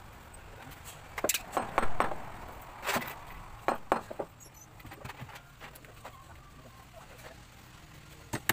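Claw hammer striking nails into a solid hardwood panel: a series of sharp, irregular knocks, most of them in the first half.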